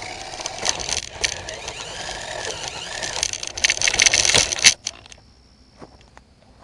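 Battery-powered RC car's electric motor whining, its pitch rising and falling, with gears and wheels rattling over the ground for about five seconds before it stops suddenly.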